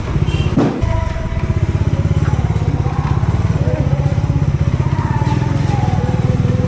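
Motorcycle engine running steadily under way, its exhaust pulsing in an even rapid beat.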